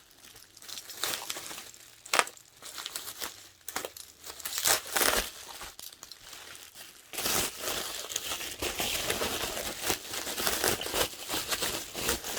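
Wrapping around an individually packed photocard being crinkled and pulled open by hand, in irregular rustles and crackles that become busier and more continuous past the middle.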